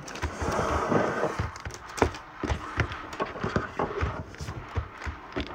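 Foil Pokémon booster-pack wrappers crinkling and rustling as a stack of packs is shuffled by hand, with many quick taps and clicks as packs are slid and set down on the table.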